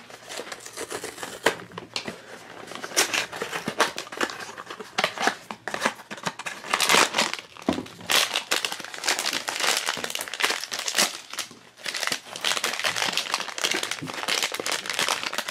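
A cardboard blind box being opened and the silver foil bag inside crinkling as it is handled and pulled open by hand. The crackling is dense and irregular throughout.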